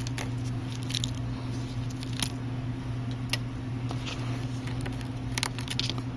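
Small irregular clicks and scrapes of tools prying at an iPhone's frame and broken screen glass, a handful of sharp ticks spread over a few seconds, over a steady low hum.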